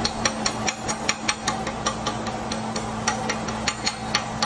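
Chipping hammer tapping slag off a fresh weld bead around a steel ring on a steel plate: quick sharp metallic taps, about four a second, over a steady low shop hum.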